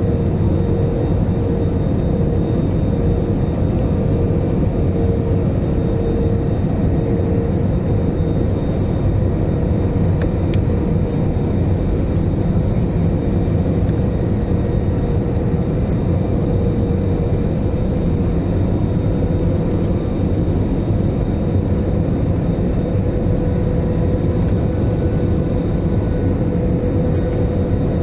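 Airliner in flight, its engines and rushing air making a steady, even drone with a faint held hum through it.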